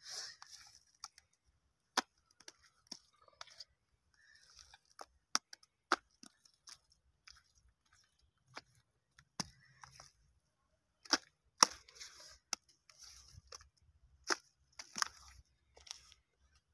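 Bare hand pressing and smearing wet mud mortar into gaps between bricks to seal the wall: irregular sharp pats and clicks with short scraping rubs in between.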